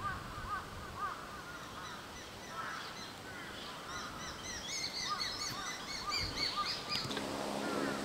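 Several birds calling with many short, high chirping notes that overlap and grow busier in the second half. A lower-pitched call joins near the end.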